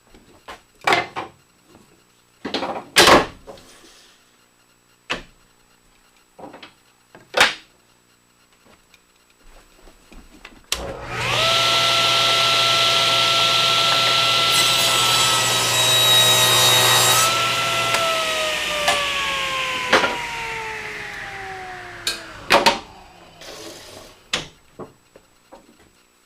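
Scattered knocks and clicks of wood and a fence being set, then a table saw starts up and runs with a steady whine. For a couple of seconds it rips a small oak piece to width, the blade noise hissing and rising in the cut. The saw is then switched off, its whine falling slowly as the blade spins down, followed by a few more knocks.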